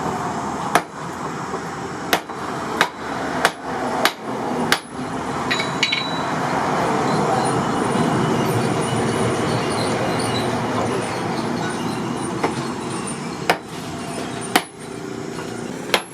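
Hammer blows on steel: a run of six sharp strikes about two-thirds of a second apart, then a gap with steady background noise, then three more single strikes near the end.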